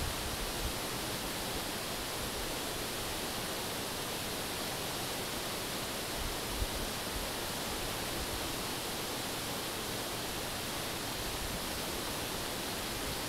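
Steady rush of a mountain river flowing over rocks, an even hiss with no pauses. A brief low bump about six and a half seconds in.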